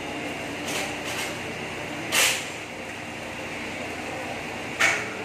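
Steady workshop hum with a few short noisy bursts from work under a motorcycle during an oil change: two faint ones early, the loudest about two seconds in, and a sharp one near the end.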